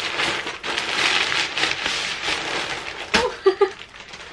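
Plastic poly mailer bags crinkling and rustling as they are handled and gathered into an armful, then a sharp click and a short laugh about three seconds in.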